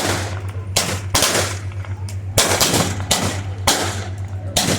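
A staged gunfight: several guns firing blanks in an irregular volley, about eight shots, some in quick pairs, each followed by a short echo.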